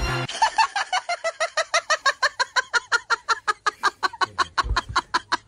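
Hamster squeaking in rapid, regular short calls, about six a second, each dropping slightly in pitch.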